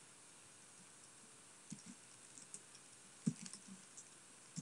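Faint computer keyboard typing: scattered single key clicks, starting a little under two seconds in.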